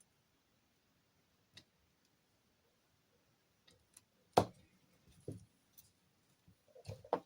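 A few sparse, short clicks and knocks of small parts being handled while reassembling a hot air station's handle after connecting its heat element; the loudest comes a little past the middle.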